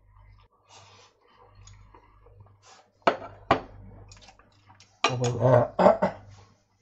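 Kitchen handling noises: two sharp knocks about three seconds in, then a louder clatter near the end as a bowl of rice is set down on the glass cooktop.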